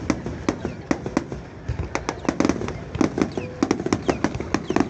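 Fireworks display going off in a rapid, irregular barrage of sharp bangs and cracks, several a second.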